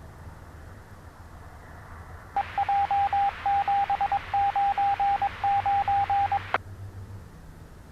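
A single steady beep tone over police radio static, keyed on and off in a pattern of long and short beeps for about four seconds, like a Morse-code data or ID signal on the channel. It cuts off with a squelch click.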